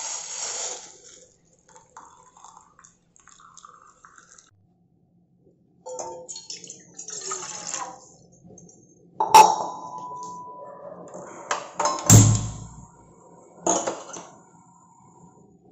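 Water poured from a steel cup into a steel saucepan, then a sharp metal clink that rings on briefly. A gas stove burner is then lit with a low thump, followed by a couple of clicks.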